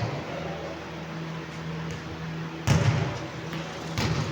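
Thuds of play on a basketball court: a loud thud about two and a half seconds in and a softer one near the end, over a steady low hum.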